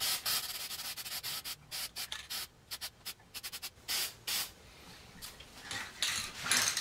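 Aerosol can of black spray paint sprayed in many short, irregular bursts onto a small oak barrel, dusting on a coat to age its bands.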